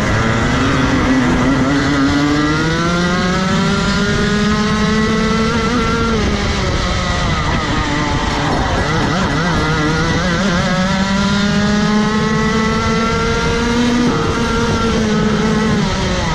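Rotax Max Evo 125cc single-cylinder two-stroke kart engine heard onboard at full throttle, its pitch climbing steadily as the kart gathers speed, then dropping sharply off the throttle into a corner about six seconds in. It climbs again and drops twice more near the end.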